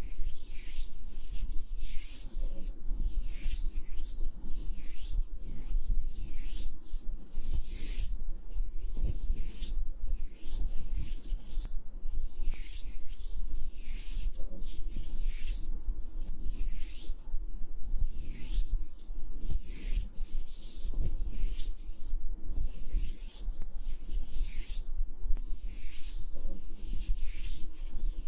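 Repeated soft rubbing strokes across a binaural ASMR microphone, a dry swish coming again and again about once a second.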